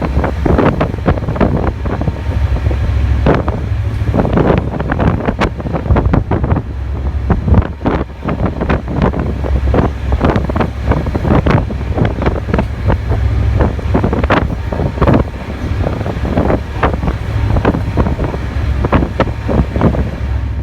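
Wind buffeting the phone's microphone in irregular gusts over a steady low rumble.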